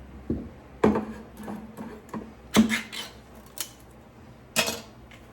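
A tin can of mushrooms being handled on a kitchen counter: five sharp metallic knocks and clinks at uneven intervals, each ringing briefly.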